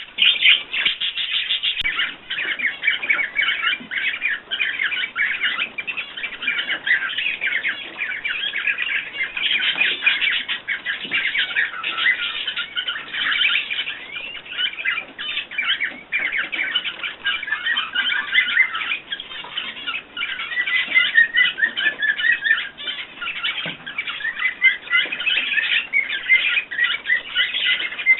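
Many small cage birds chirping and chattering at once in a dense, continuous stream of rapid high notes.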